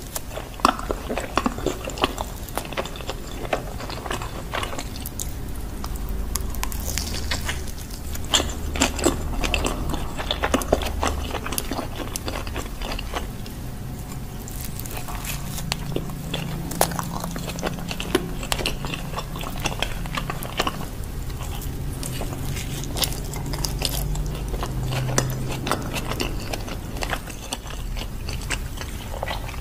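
Close-miked biting and chewing of cheesy corn-topped pizza: soft bites into the crust and wet, sticky chewing with many small irregular clicks and crackles.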